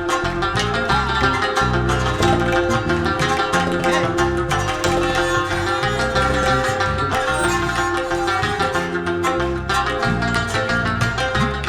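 Instrumental interlude of Afghan folk music: a plucked Afghan rubab playing quick runs over sustained drone strings, with tabla drumming underneath.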